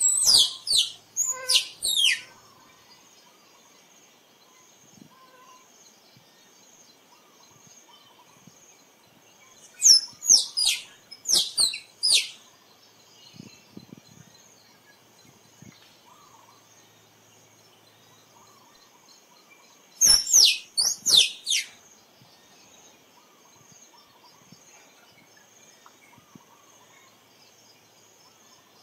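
Tree squirrel calling: three bouts about ten seconds apart, each a quick run of five or six sharp chirps that fall in pitch, lasting about two seconds.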